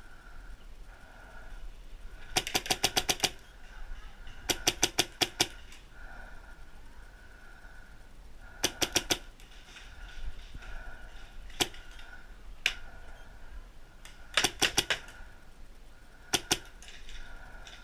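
Paintball markers firing, mostly in rapid strings of four to seven shots with a couple of single shots between.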